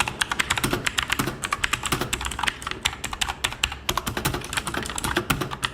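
Fantech MK851 Max Pro mechanical keyboard with clicky blue switches being typed on quickly: a fast, uneven run of sharp clicks, many keys a second. The switches sound somewhat rough.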